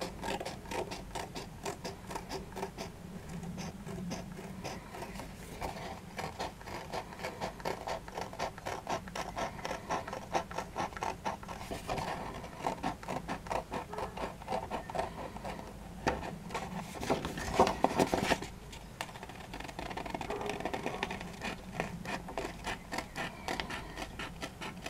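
Scissors snipping through a sheet of design paper, a long run of short cuts at several a second, with the paper rustling as it is turned. About two-thirds of the way in there is a louder burst of handling noise.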